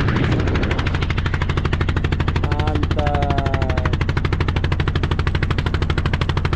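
Small wooden boat's engine running at a steady cruise, a rapid even chugging of about ten beats a second with a low hum under it.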